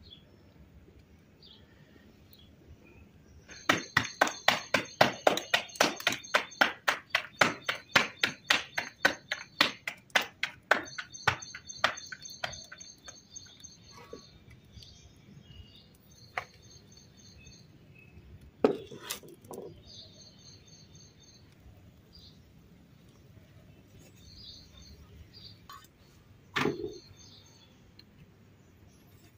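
Paratha dough slapped rapidly between the palms to flatten it, about four slaps a second for some eight seconds, with small birds chirping. Two single knocks come later.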